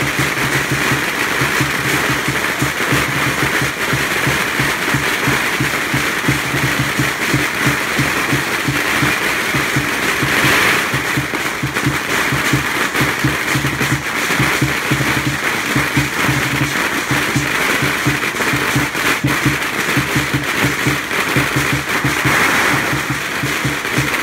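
Lion dance drum and cymbals playing a steady, driving rhythm, with strings of firecrackers crackling densely over it.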